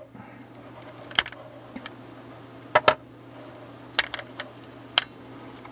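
A few sharp plastic clicks and taps about a second apart, from handling a small handheld voice recorder, over a faint steady hum.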